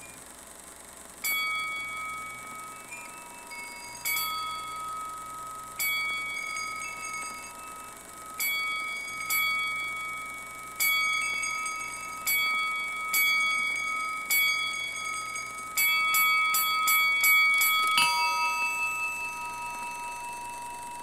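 A bell struck again and again, each stroke ringing and fading, the strokes one to three seconds apart. Near the end a quick run of strikes follows, and a last stroke on a lower note rings out.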